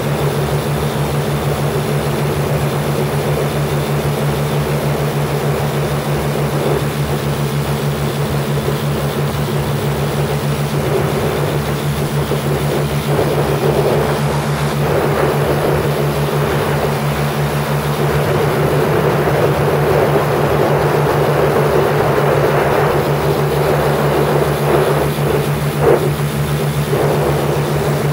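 Lazair ultralight aircraft's twin engines and propellers in cruise, a steady drone, with wind noise in the open airframe rising and falling over it and one brief louder gust near the end.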